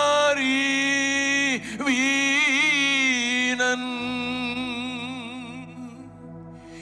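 A man singing a slow devotional song into a microphone, holding long notes, the first steady and the later ones wavering, with the voice trailing off near the end. A faint steady low drone runs underneath.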